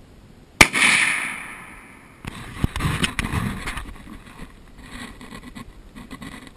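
A single rifle shot from a scoped Remington 7mm-08: a sharp crack less than a second in, its echo fading over about a second and a half. From about two seconds in there are irregular rustling and light knocks.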